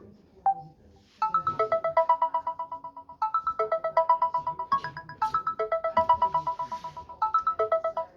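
Samsung Galaxy A14 ringtone playing from the phone's speaker: a single short tone, then from about a second in a fast, repeating pattern of bright electronic notes, broken by two short pauses.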